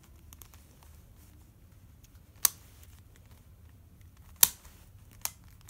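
Plastic Kibiminx speed puzzle being turned by hand: faint clicking of the layers, with two sharp plastic clacks about two and a half and four and a half seconds in, and a lighter one near the end.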